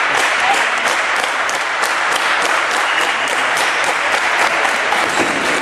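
Steady applause: many hands clapping, with sharp individual claps standing out.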